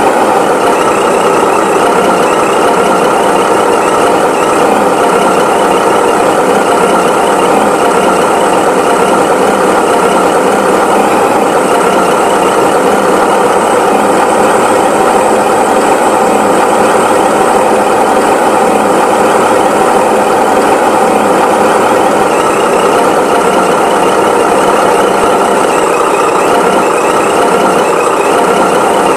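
Tractor engine running steadily at an even speed, with no change in pitch or loudness.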